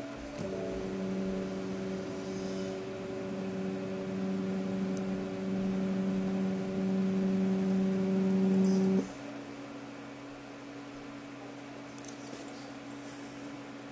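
Tiko delta 3D printer's motors whining steadily as the print head travels down toward the bed during auto-calibration. The whine stops abruptly about nine seconds in, leaving a faint steady hum.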